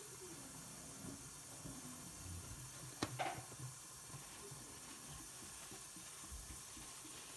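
A paper towel torn off the roll: a sharp snap and a brief crinkle of paper about three seconds in, over a faint steady hiss.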